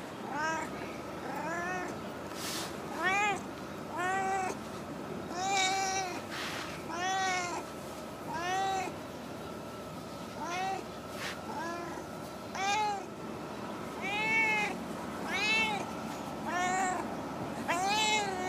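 A female stray cat meowing over and over, short meows that rise and fall in pitch, about one a second.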